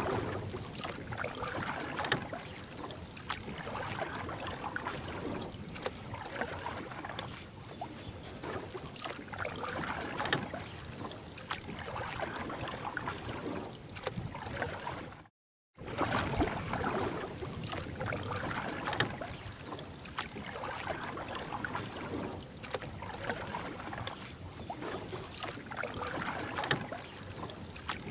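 Kayak paddle strokes splashing and swishing through river water, coming in swells every second or two, with a few sharp clicks. The sound cuts out for a moment about halfway through.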